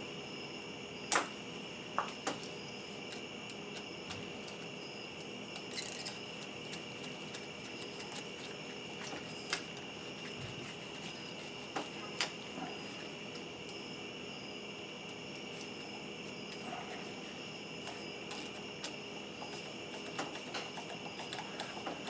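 Scattered sharp metallic clicks and taps from a screwdriver tightening hose clamps on a fuel pump and its sending unit, the loudest about a second in. A steady high-pitched whine runs underneath.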